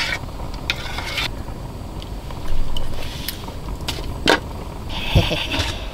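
Metal spoon scraping and clinking against a stainless steel pot on a small camping gas stove, with several sharp clinks, the loudest about four seconds in, over a steady low rumble.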